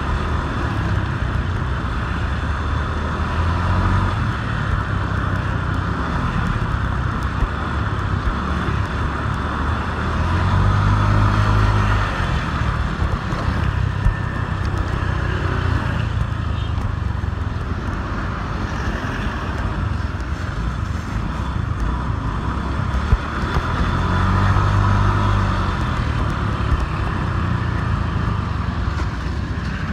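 A motor scooter's engine running through town traffic, with steady road noise and the sound of other vehicles around it. The engine hum swells twice, about a third of the way in and again past the three-quarter mark.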